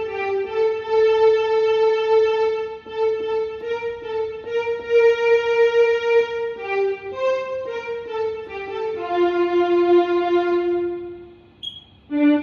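Yamaha portable electronic keyboard playing a slow melody of long held notes. The tune fades out for about a second near the end, then the next phrase begins.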